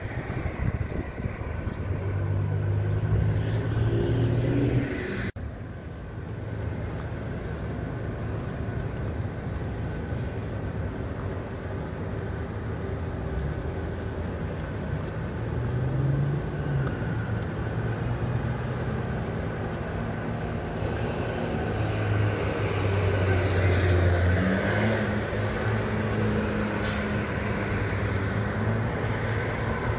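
Road traffic on a city street: car engines passing and fading several times over a steady traffic hum.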